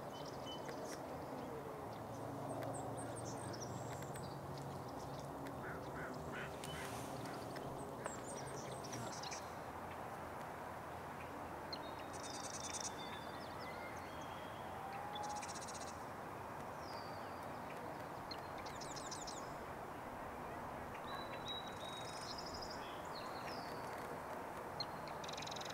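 Pond-side ambience: ducks calling a few times over steady background noise, with many short, high chirps and trills from small birds scattered throughout. A low hum fades out about nine seconds in.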